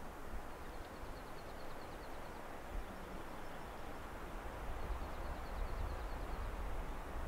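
Wind rushing through the pines and buffeting the microphone, with a low rumble that builds toward the end. A faint, rapid high trill from a small songbird comes twice, about a second in and again around five seconds.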